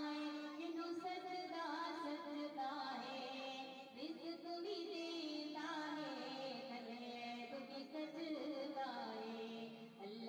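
Background music: a slow melody of long held notes with wavering pitch.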